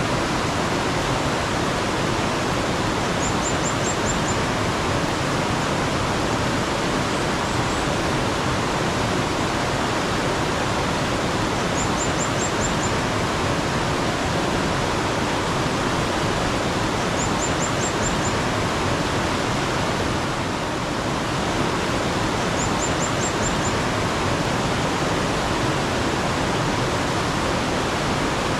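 Mountain stream water running in a steady rush. Over it, a small bird gives a short, high call of five or six quick notes, four times at intervals of about five seconds.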